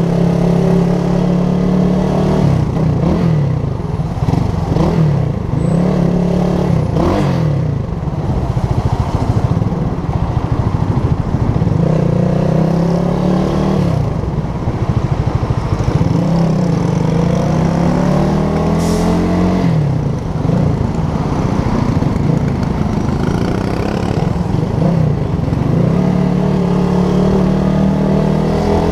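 Motorcycle engine running at low speed, its pitch rising each time the throttle is opened and dropping back off throttle, several times over.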